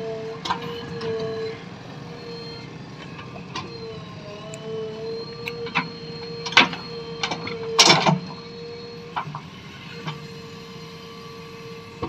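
JCB 3DX backhoe loader running with a steady whine as its rear backhoe arm and bucket dig into sandy soil. Several sharp knocks and clanks from the bucket and arm are scattered through it, the loudest about eight seconds in.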